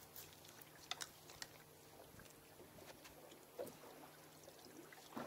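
Near silence, with a few faint clicks and knocks from a fish being worked off the hook in a rubber-mesh landing net and handled on the boat deck; the sharpest click comes about a second in and a short knock about three and a half seconds in.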